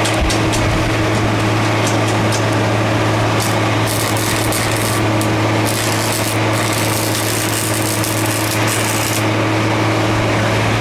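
Stick welding with a thin 6013 electrode: the arc crackles and sizzles, louder in patches through the middle, over a steady low machine hum.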